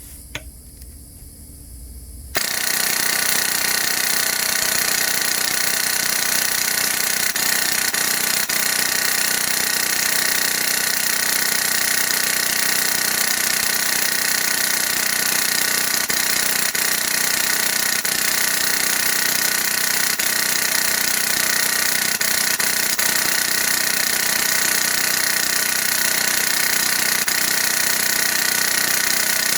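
LCT PKP airsoft light machine gun, run on compressed air through a Wolverine Inferno HPA engine, firing one long, unbroken full-auto burst fed from a box magazine. The burst starts abruptly about two seconds in, after a quieter stretch, and holds a steady rapid rate.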